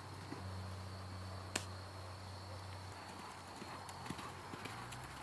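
Welsh pony's hoofbeats on sand footing, soft irregular thuds over a steady low hum, with one sharp click about one and a half seconds in.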